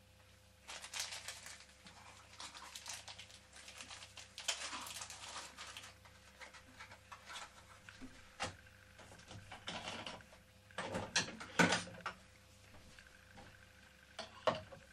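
Clear plastic bag crinkling and rustling as it is handled for several seconds, then scattered clicks and knocks of small objects being picked up and set down on a workbench, the loudest a few seconds before the end.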